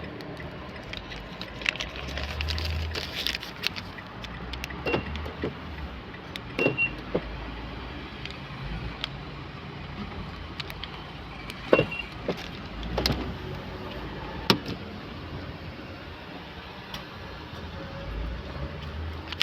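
Scattered clicks, knocks and rattles of handling, with a few brief pairs of high beeps.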